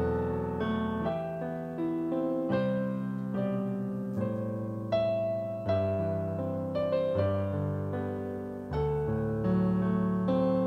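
Piano prelude played on a digital piano: slow chords struck a second or a few seconds apart, each left to ring and fade, with melody notes above them.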